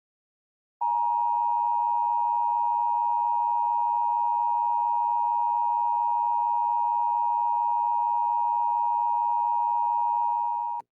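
Emergency Alert System attention signal: a steady electronic alarm tone that starts about a second in, holds unchanged for about ten seconds and then cuts off abruptly. It signals that an emergency alert is about to be broadcast.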